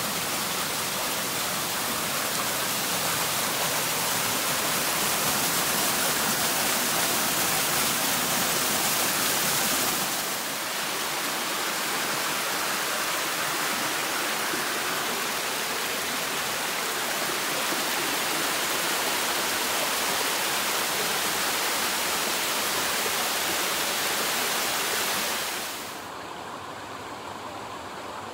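Steady rush of a small waterfall splashing down onto rocks. Near the end it drops suddenly to a fainter, duller hiss of water.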